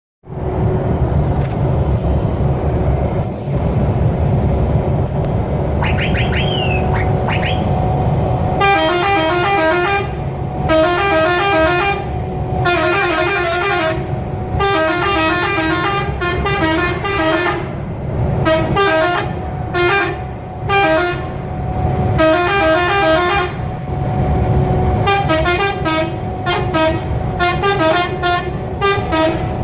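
Multi-trumpet Marco air horn playing a melody in repeated phrases with short gaps, starting about eight seconds in, over a steady low rumble. Just before it, a whistle horn gives a few quick rising whistles.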